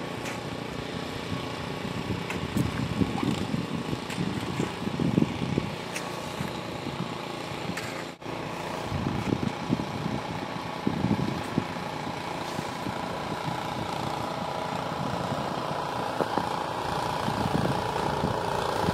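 An engine running steadily, with irregular louder bursts over it.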